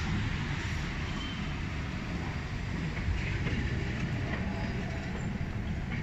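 A train running at the station: a steady low rumble with a wash of noise over it, holding even throughout.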